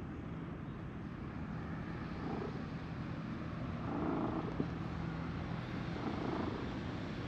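A cat purring with a steady low hum as it is stroked. Soft rustles of a hand rubbing its fur come about two, four and six seconds in.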